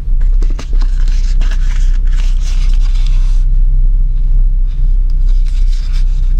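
Knife blade sliding into a stitched leather sheath, with leather scraping and rustling and small knocks of handling for about three seconds, then quieter handling of the sheathed knife. A steady low hum runs underneath.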